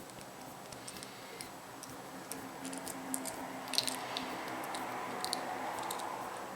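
Surprise egg and its toy being handled by hand: scattered small clicks and snaps over soft crinkling, busiest around the middle.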